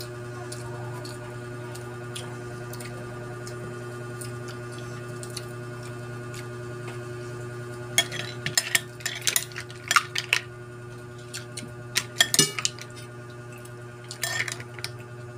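Spoon and mussel shells clinking against ceramic plates and a bowl while eating, in quick clusters of sharp clinks from about halfway through and again near the end, over a steady low hum.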